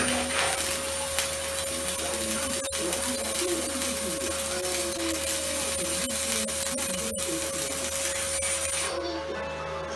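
Stick (arc) welding on square steel tubing: the electrode's arc gives a steady crackling hiss, which stops about nine seconds in when the arc is broken.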